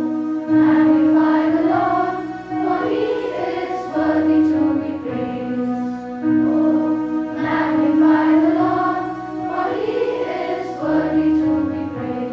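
A group of young voices singing a slow song over sustained keyboard chords that change every couple of seconds.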